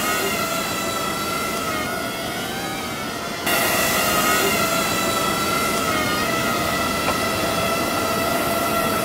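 Quadcopter drone propellers whining steadily, the pitch wavering slightly as the motors adjust to hold and track. It gets louder about three and a half seconds in.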